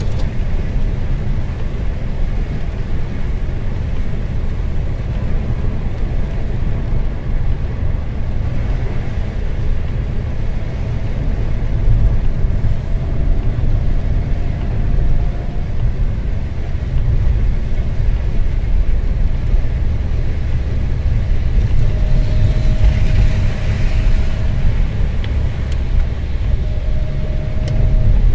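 Car driving on a rain-soaked highway, heard from inside the cabin: a steady low rumble of tyres and engine with a hiss from the wet road. A louder hiss rises briefly about three-quarters of the way through.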